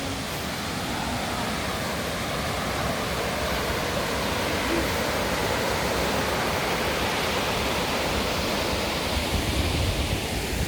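Steady rushing of flowing water, like a mountain stream or small falls close by, with a few low rumbles near the end.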